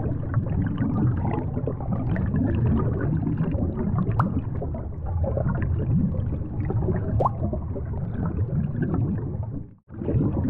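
Underwater sound picked up by a submerged camera: a steady low water noise with gurgling and faint clicks. It breaks off briefly near the end.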